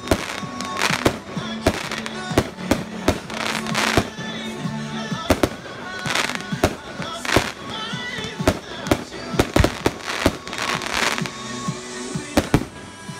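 Aerial firework shells bursting in rapid succession: sharp bangs several times a second with crackle between them.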